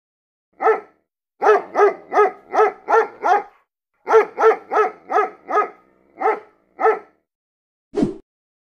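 A dog barking: about fourteen short barks in quick runs, a single bark, a run of six, a run of five, then two more spaced out, followed near the end by one short low thump.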